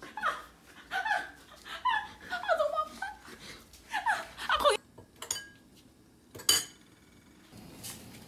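A baby giggling and squealing in a run of short, high, falling cries for the first half, then a sharp knock about six and a half seconds in. A steady rushing noise begins near the end.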